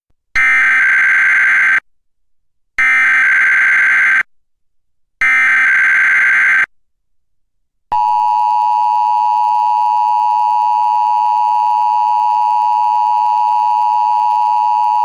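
Emergency Alert System Required Weekly Test: three bursts of SAME digital header data, each about a second and a half long with about a second between them. About eight seconds in, the steady two-tone EAS attention signal starts and holds.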